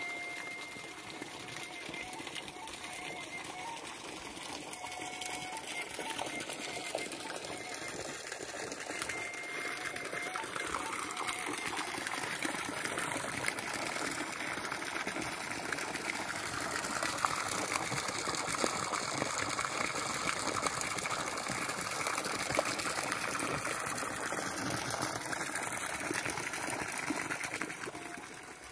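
Water gushing steadily from a bamboo pipe and splashing into a flooded rice paddy, growing louder about ten seconds in.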